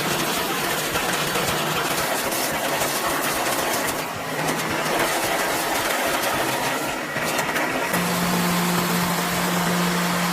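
Heavy wood-processing machinery running: an engine under load with dense grinding noise, and a steady low hum joining about eight seconds in.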